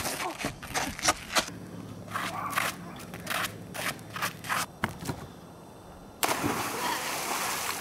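Running footsteps and knocks on a flat roof. About six seconds in, a loud splash as a person drops into a swimming pool, then water churning steadily.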